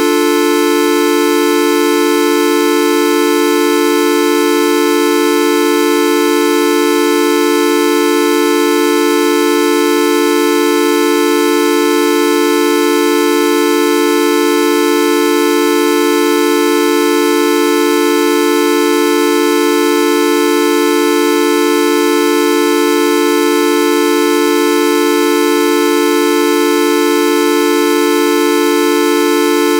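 A loud, continuous horn-like buzzing tone, held at one pitch without any change or break.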